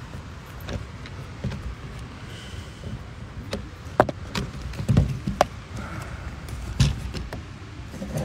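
Handling noise from a phone held and swung in the hand: several sharp knocks and rubs against its body, about four seconds in, twice around five seconds, and again near seven seconds, over a low steady rumble.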